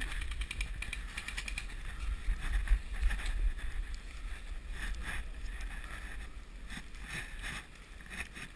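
A rapid, evenly spaced string of sharp clicks in the first second and a half, like an airsoft gun on full auto. After it come scattered crunches of running footsteps in dry fallen leaves, with a low wind rumble on the microphone throughout.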